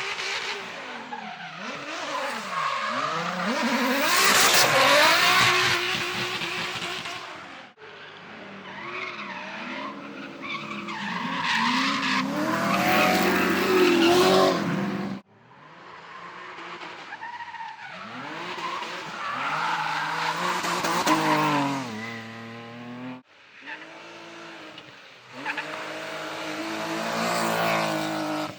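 Drift cars sliding through corners, engines revving up and down while the tyres squeal. It comes as four short clips, each cut off abruptly for the next, and the loudest squeal is about four seconds in.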